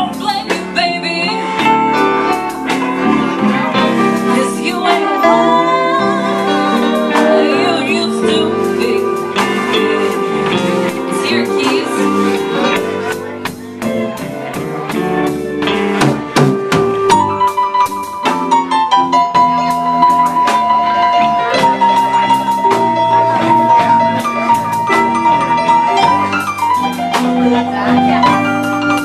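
Live blues band playing, led by electric guitar. Wavering bent notes come early, and a long held note sounds through much of the second half.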